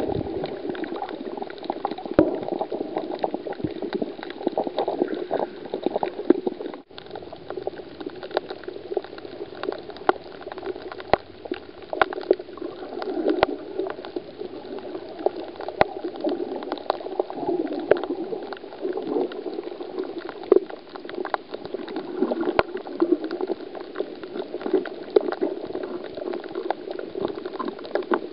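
Muffled rushing and bubbling of water heard through a submerged camera, with many scattered sharp clicks. The sound cuts out briefly about seven seconds in.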